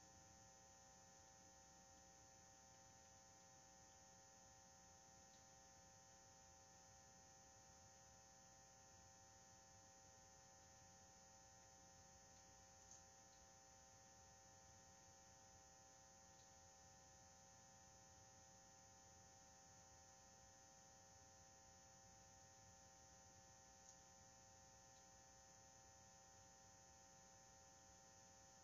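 Near silence: a faint steady electrical hum with a thin high whine, broken only by two tiny ticks.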